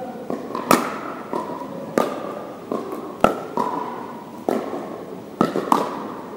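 Pickleball paddles striking the hollow plastic ball: about six sharp pops roughly a second apart, two close together near the end, each ringing on in the echo of a large hall.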